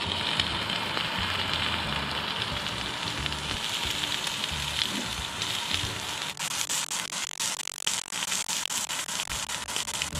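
A pressurised camp stove burner hissing steadily under a hot sandwich maker. Ham and egg-topped bread sizzle in the open pan, and from about six seconds in there is dense crackling. Background music plays faintly underneath.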